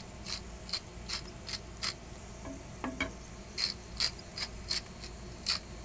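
Salt grinder being twisted over a pan of shrimp: a run of short ratchety clicks, about two or three a second, with a pause in the middle.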